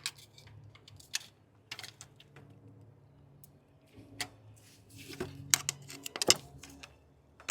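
Irregular light clicks and taps of hand tools against engine timing parts as they are pried loose, over a low steady hum.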